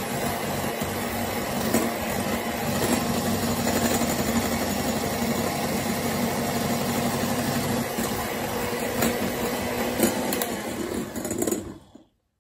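Electric hand mixer running steadily, its beaters whipping egg whites with sugar into meringue in a glass bowl, with a few clicks along the way; the sound cuts off suddenly near the end.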